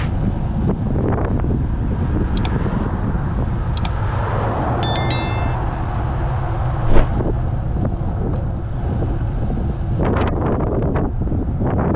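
Wind buffeting the microphone over the rumble of a road bike's tyres on tarmac while riding. There are a few brief high tones between about two and five seconds in, and a single sharp knock about seven seconds in.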